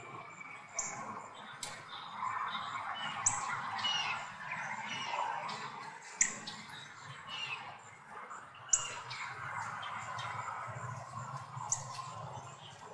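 Birds calling in the trees: sharp, high squawk-like calls every two or three seconds among softer chirps, over a steady low hum.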